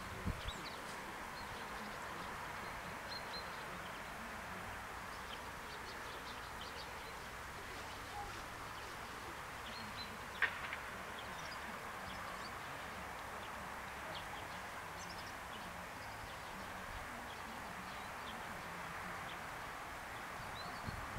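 Outdoor ambience: a steady hiss with scattered faint bird chirps, and a single sharp click about halfway through.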